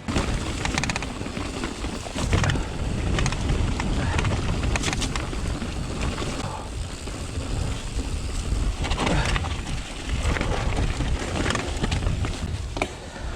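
Mountain bike being ridden over rough trail: a steady low rumble and rattle, with scattered sharp clicks and knocks, and wind buffeting the microphone.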